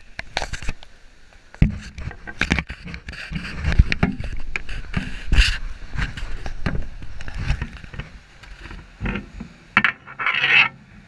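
Handling noise from a small action camera being set down and positioned on the floor: irregular knocks, clicks and scraping against the microphone, with a short scraping rustle near the end.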